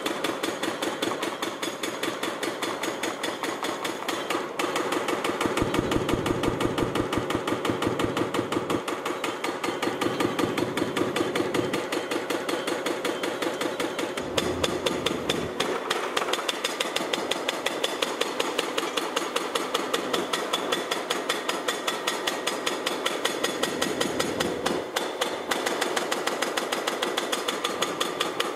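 About 4000 kg hydraulic breaker on a Komatsu 490 LC excavator hammering concrete: a loud, rapid, even rattle of blows, several a second, without a break.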